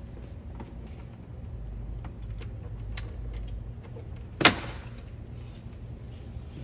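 Plastic dashboard side trim panel on a Tesla Model 3 being pried off by hand. Its retaining clips let go with one loud, sharp snap about four and a half seconds in, among lighter clicks of plastic being handled.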